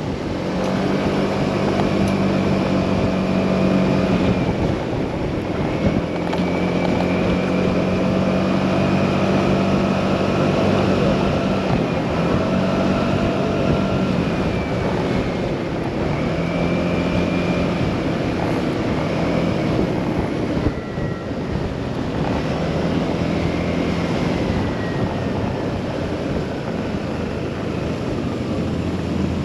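Motorcycle engine running at road speed with wind rushing over the microphone; the engine note drops away and comes back several times as the throttle is eased and reopened.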